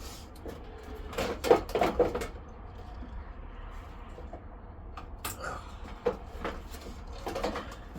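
Scattered knocks and clatter from handling car bumper parts: a cluster of knocks about a second in, then single sharp knocks later on, over a steady low hum.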